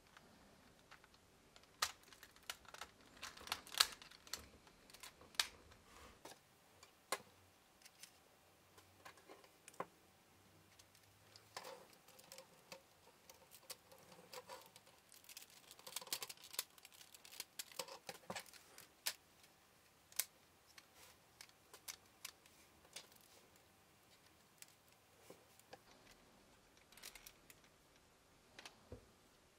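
Lego Technic plastic parts clicking and rattling as beams, pins and gears are handled and pressed together; faint, irregular clicks, with the busiest clusters about four, twelve and sixteen seconds in.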